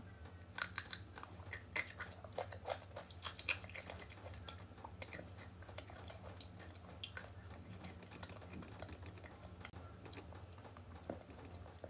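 Crisp crunching of raw green mango being bitten and chewed with the mouth close to the microphone. The crunches come thick and fast for the first few seconds, then thin out to occasional ones.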